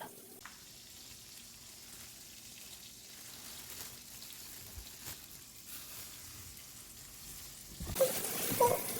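Faint, steady sizzling hiss from a pot of hot chocolate heating on the stove. About eight seconds in, much louder music cuts in.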